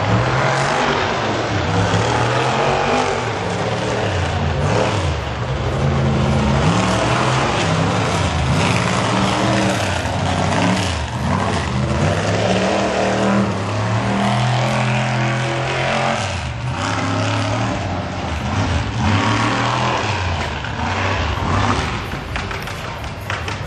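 Mega truck's engine revving hard, its pitch rising and falling again and again as the truck spins and slides through the dirt.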